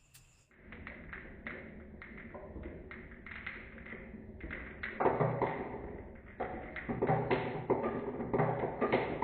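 Marbles rolling and clacking down a wooden HABA marble run: a fast, uneven string of taps and knocks that starts about half a second in and grows louder from about five seconds in.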